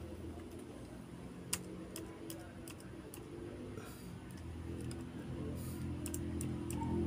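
Scattered clicks of a laptop's touchpad and keys being pressed while navigating on screen, over a steady low hum that grows louder in the second half.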